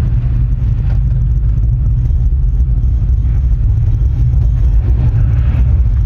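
Steady, loud low rumble while riding in a Miyajima Ropeway gondola.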